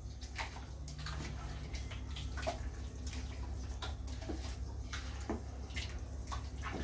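A hand squishing and turning raw chicken pieces in a thick yogurt-and-spice marinade in a steel pot: irregular wet squelches and small clicks over a steady low hum.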